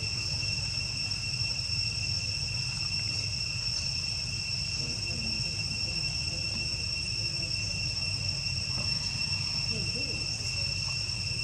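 Insects, crickets or cicadas, droning in one unbroken high pitch over a low rumble.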